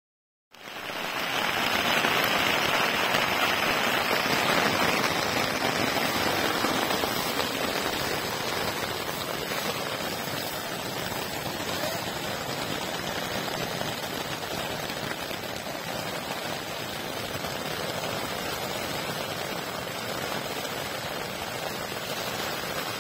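Rain falling on a tent's flysheet, heard from inside the tent: a dense, steady hiss of drops that starts abruptly, is heaviest in the first few seconds and eases a little after.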